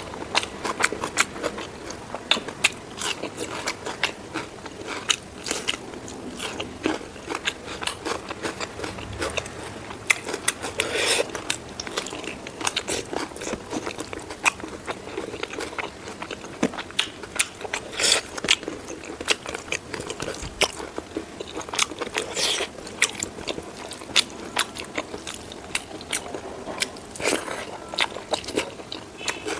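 Close-miked eating of pork rib curry with rice: continuous irregular chewing and biting, with many sharp crunchy clicks and wet smacks.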